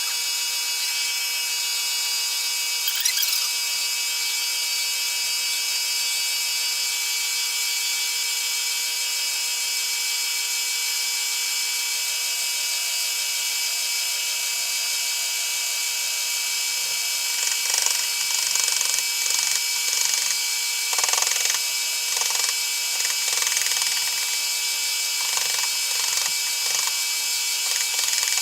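Milling machine running with a steady high whine. From a bit past the middle it starts cutting into wood, adding short, irregular bursts of rasping cutting noise.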